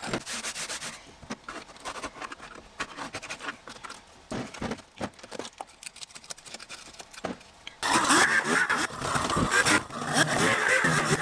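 Hand scraper and brush working flaky coating and debris off a car's floor pan: scattered light scrapes and taps. About eight seconds in, a loud, steady mechanical noise starts and takes over.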